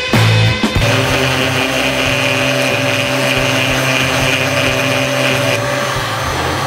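Konan 300 W bench grinder's flexible-shaft rotary tool running, its pink abrasive stone grinding rusty steel: a steady motor whine with the hiss of the stone on the metal. The hiss drops away about five and a half seconds in.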